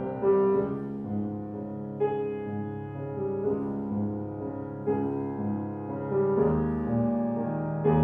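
Background music: a piano piece with new notes struck about every second and a half, deeper bass notes joining about six seconds in.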